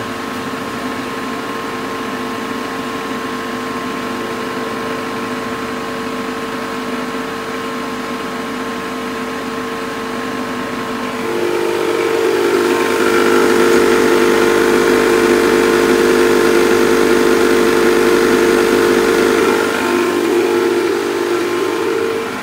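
Refrigerant recovery machine running steadily, its compressor pumping refrigerant out of a freezer's high and low sides through the gauge manifold. The steady hum grows louder about halfway through.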